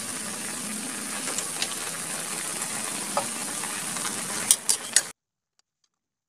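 Adobo simmering and sizzling in a wok in its soy sauce and vinegar, an even hiss with a few light clicks. Near the end come three sharp clicks, and the sound cuts off abruptly about five seconds in.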